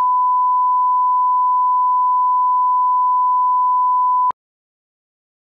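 Steady 1 kHz reference test tone, the beep that goes with colour bars, cutting off abruptly with a click about four seconds in.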